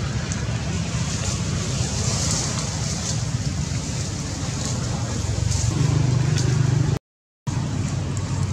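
Steady low rumble of a running motor-vehicle engine, with a hum and some hiss above it; the sound drops out completely for about half a second near the end.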